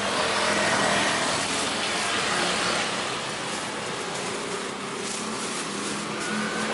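Road traffic passing: a steady rush of engine and tyre noise that swells about a second in and eases off toward the middle.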